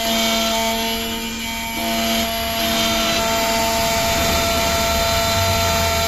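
Xhorse Condor Dolphin XP-005 automatic key cutting machine milling an aluminium key blank: a steady motor whine with several steady tones that switch on and off as the cutter travels along the key.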